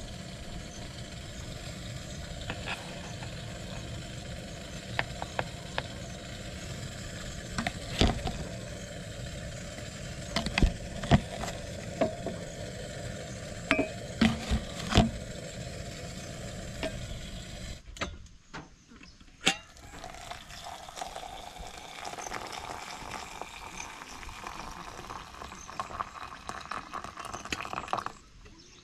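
A wooden spoon clicks and taps against plastic jars and an enamel mug as powders are scooped out, over a steady hiss. From about two-thirds of the way through, the hiss stops and a drink is stirred in the enamel mug with a wooden stick, a soft swishing.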